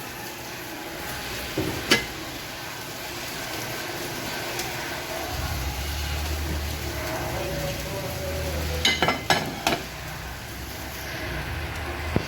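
Pots of food cooking on the stove with a steady hiss. There is a sharp metal clink about two seconds in and a quick run of clinks around nine seconds. A low rumble comes in about five seconds in.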